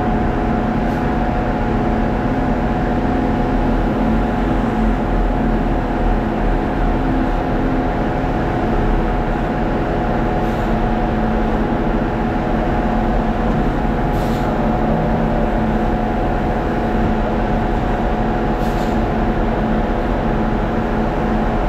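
Heavy diesel machinery running steadily: a concrete pump working while a front-discharge concrete mixer truck empties into it. There are a few faint sharp clicks about 10, 14 and 19 seconds in.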